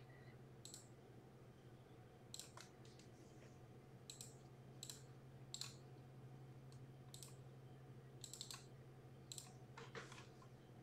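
Near silence with about a dozen faint, irregular clicks from a computer keyboard and mouse, over a low steady hum.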